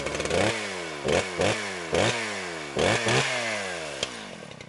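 Small petrol engine revved in about six quick throttle blips, its pitch falling after each, then winding down and fading near the end.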